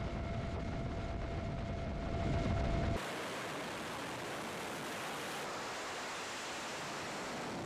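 Jet engine noise on an aircraft carrier flight deck as J-15 fighters are readied for launch. A low rumble with a steady whine swells for about three seconds, then cuts suddenly to an even, steady hiss.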